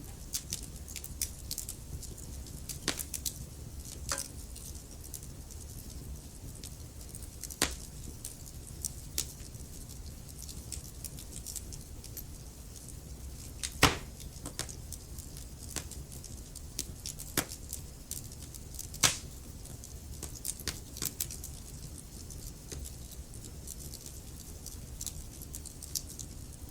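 Wood fire crackling in a fireplace: irregular small pops and snaps over a low steady rumble, with sharper pops about 14 and 19 seconds in.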